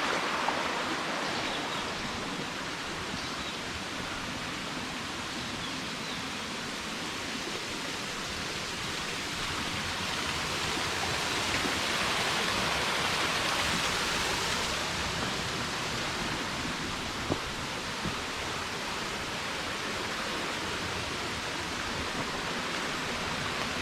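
Steady rush of flowing water from a jungle stream, swelling for a few seconds around the middle, with two faint clicks later on.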